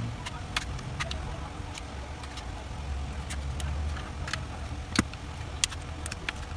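Irregular sharp clicks and taps from hands and tools working on a laptop battery pack, the loudest about five seconds in, over a steady low background rumble.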